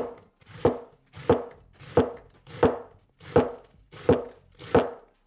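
A Minamoto No Masakane 270 mm carbon-steel gyuto slicing through a half head of cabbage onto a wooden cutting board: eight even strokes, about one every two-thirds of a second, each a crisp crunch through the leaves down to the board.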